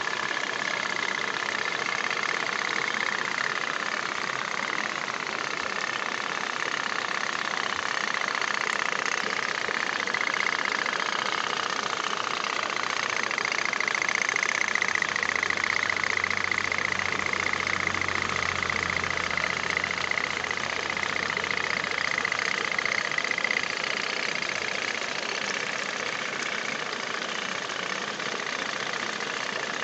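Otok-otok pop-pop toy boat running, its small candle-heated steam engine putting steadily.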